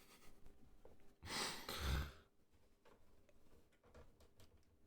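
A person sighing once, a breathy exhale of about a second starting just over a second in, followed by a few faint clicks.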